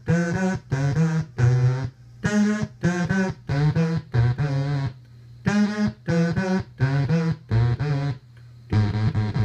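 EAS analog VCO through a filter, played by voice through the Mindreader pitch-to-CV module: phrases of short stepped notes with brief pauses between them. Each note's pitch follows the voice sung into the microphone, and its brightness follows the voice's loudness.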